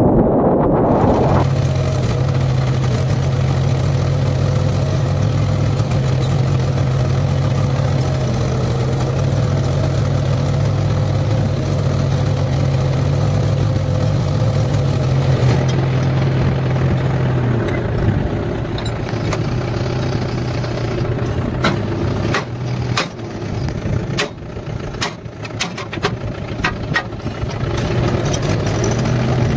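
Farm tractor's diesel engine running steadily. About halfway through the engine sound weakens and breaks up while sharp irregular clicks and knocks come through, then the steady engine sound returns near the end.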